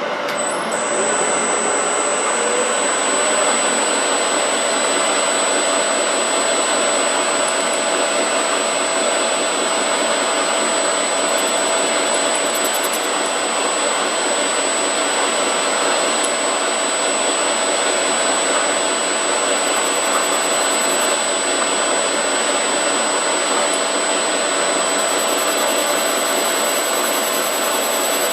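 Metal lathe switched on about a second in, its pitch rising briefly as it comes up to speed, then running steadily with a high whine over a constant rushing noise.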